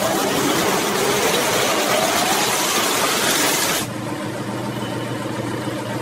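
Washing-machine drum spinning: a loud, even rushing with a faint rising whine. About four seconds in, it changes abruptly to a steady, low motor hum.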